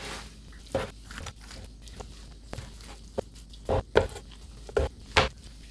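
Large knife cutting through smoked brisket and knocking down on a cutting board, with several sharp knocks at uneven intervals, the loudest near the end.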